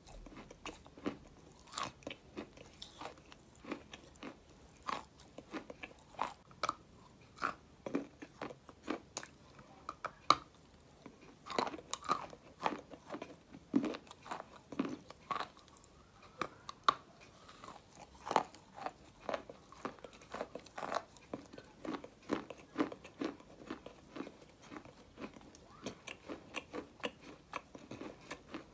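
A person biting and chewing a slab of white clay: an irregular run of short, sharp crunches, two or three a second.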